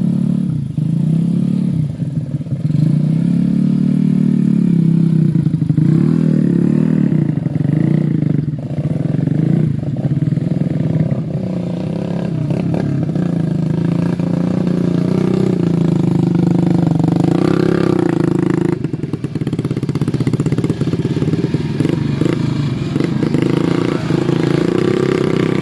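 Motorcycle engine running, its revs rising and falling again and again, with a few short knocks.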